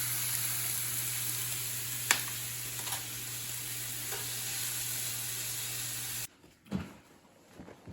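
Steady sizzling hiss with a faint steady hum under it and a single sharp click about two seconds in; it cuts off abruptly a little after six seconds.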